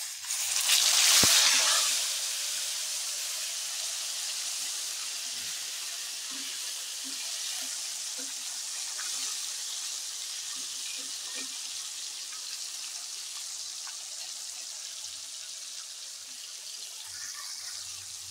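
Whole marinated black pomfret lowered into hot oil in a kadai: a loud burst of sizzling as it goes in, settling within a couple of seconds into the steady hiss of deep frying.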